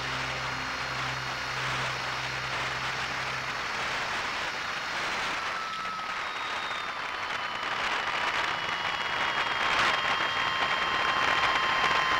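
Rushing wind noise over an RC model plane's onboard camera, with the thin steady whine of its motor and propeller, which gets louder and climbs slightly in pitch in the second half. Background music fades out in the first few seconds.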